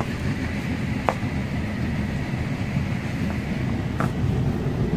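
Steady low rumble of background noise, with two faint clicks, one about a second in and one near the end.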